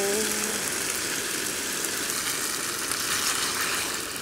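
Spaghetti and cream sauce sizzling in a small frying pan over a portable gas canister stove, being stirred with tongs; a steady hiss that eases slightly near the end.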